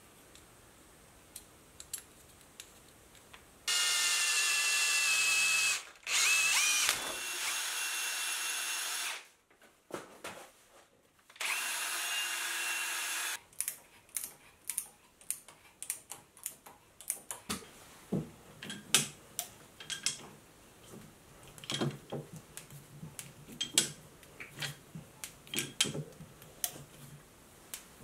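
Power drill running in three bursts of a few seconds each, a steady high whine, the second one dipping in pitch for a moment as it bites. Then a long run of small sharp clicks and taps.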